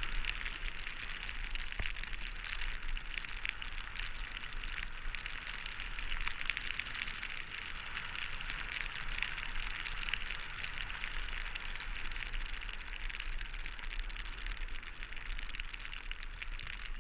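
Snowboard sliding over snow on a downhill run: a steady hiss with crackly scraping from the base and edges, over a low rumble of wind on the camera.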